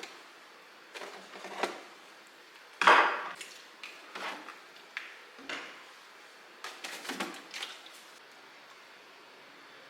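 Food containers and jars knocked and set down on hard surfaces as a fridge is handled: about a dozen clatters and bumps in small groups, the loudest about three seconds in, then stillness for the last couple of seconds.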